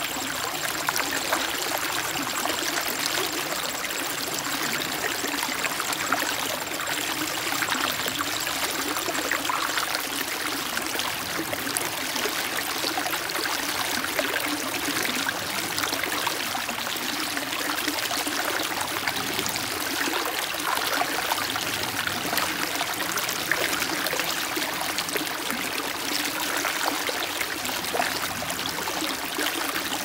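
Shallow rocky stream flowing over and between boulders: a steady rush and splash of running water.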